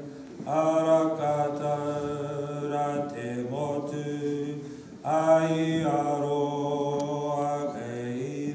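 A man's voice chanting in te reo Māori, two long phrases drawn out on held notes with a short breath between them about five seconds in.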